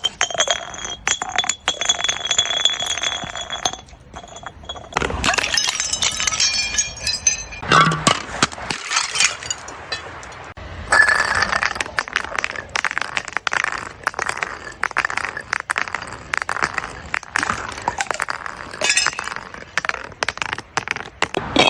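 Glass breaking and crunching, with dense crackling and clinking as bottle glass is crushed into shards. Short ringing tones sound in the first few seconds.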